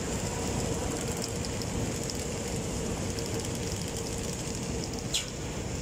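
SRC 550 slitter rewinder running, winding slit tape onto a flanged spool: a steady mechanical running noise with a faint constant hum. A brief squeak falling in pitch sounds once about five seconds in.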